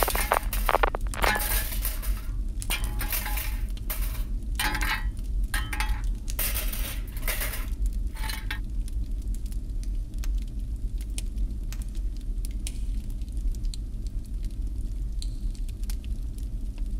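Rapid clinks and rattles, dense for about the first eight seconds and then sparse, over a steady low hum.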